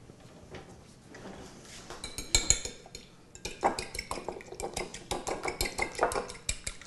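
An egg being beaten in a glass bowl, the utensil clinking rapidly and evenly against the glass from about three and a half seconds in. It is preceded by a couple of sharp knocks about two seconds in.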